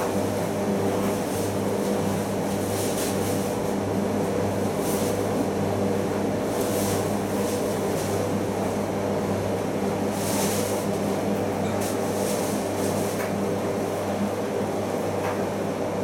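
Primus FX105 commercial washing machine in its final rinse, its drum turning a wet duvet: a steady motor hum with a brief swish every couple of seconds as the load tumbles.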